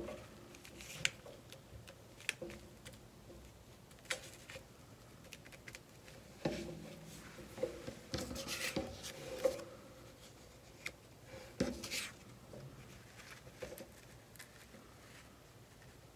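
Paper pieces being handled and shifted about on a cutting mat: scattered soft rustles, light taps and short scrapes, busiest around eight to ten seconds in.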